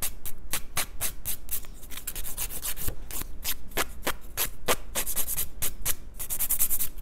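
Hand nail file rasping back and forth across a fingernail's free edge in quick short strokes, about four a second, shaping the nail to a pointed almond tip. The strokes stop near the end.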